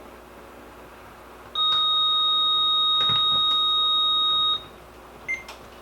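RadioShack 12-253 weather radio giving a steady electronic beep of about three seconds as it powers up with the weather snooze button held, the way into its test mode. A few light clicks follow near the end.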